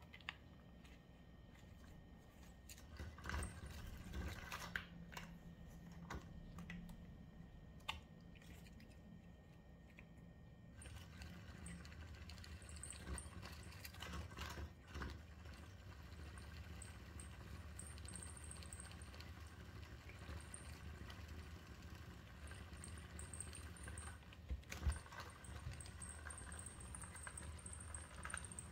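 Small electric motor of a battery-powered spinning butterfly cat toy running with a faint low hum, with irregular light clicks and ticks as its wand turns and the butterfly brushes the cat's neck; a sharper knock comes near the end.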